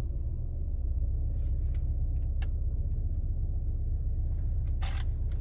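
Steady low rumble of a car, with a sharp click about two and a half seconds in and a short rustling burst near the end.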